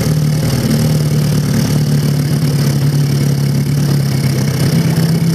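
1947 Johnson TD-20 5 hp two-stroke outboard motor running at a steady, even speed, driving the boat along.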